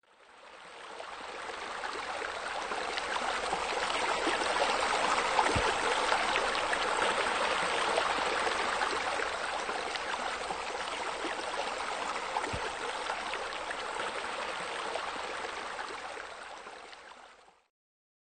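Steady rush of flowing, splashing water, a pool's waterfall or spillway, fading in over the first couple of seconds and fading out shortly before the end.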